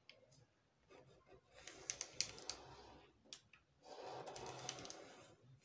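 Faint scratching of a ballpoint pen drawing a line along a clear plastic curved pattern ruler on pattern paper, with small ticks and clicks as the ruler and paper shift. A longer scratchy stroke comes in the second half.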